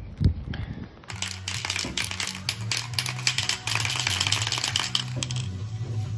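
A thump near the start, then an aerosol spray paint can being shaken, its mixing ball rattling in quick, irregular clicks.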